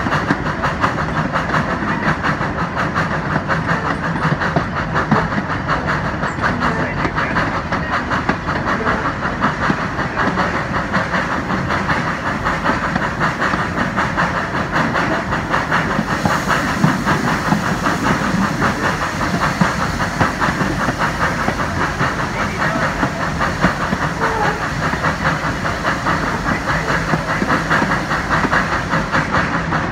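1901 NA class 2-6-2 tank locomotive No. 6 working along a narrow gauge line: a steady, fast rhythm of exhaust beats with steam hissing, over the clatter of carriage wheels on the rails.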